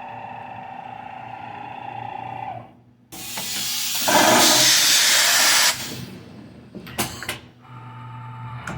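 1980 Shizuoka AN-S CNC milling machine during drilling: a steady machine whine that stops about two and a half seconds in, then a loud hiss lasting a couple of seconds, a few sharp clicks, and the whine returning near the end.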